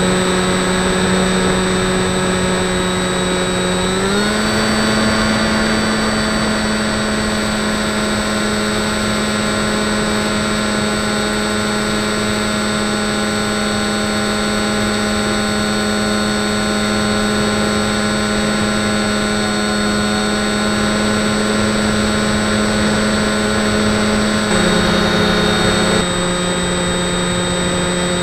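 RC model plane's motor and propeller whining steadily, heard from the camera on the plane with air rushing past. The pitch rises quickly about four seconds in as the throttle goes up, holds, and drops back a step near the end.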